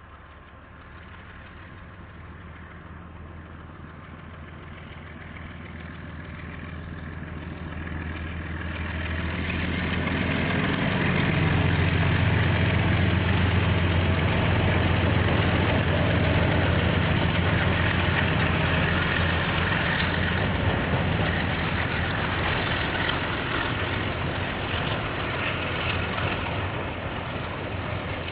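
KiwiRail diesel locomotive hauling a freight train past, its low engine drone growing steadily louder over about ten seconds and then easing slightly as the wagons roll by.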